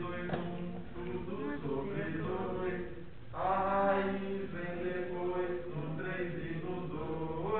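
A man singing a trigonometry mnemonic, the sine, cosine and tangent values of 30, 45 and 60 degrees, to the tune of a Christmas song, in long held notes.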